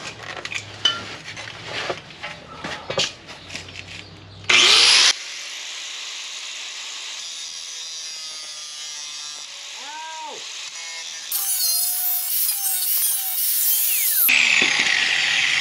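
Grinder grinding metal on a welded sheet-steel rust-repair patch, coming in with a sudden loud burst about four and a half seconds in and running on as a steady grinding hiss. Scattered clicks and knocks come before it starts.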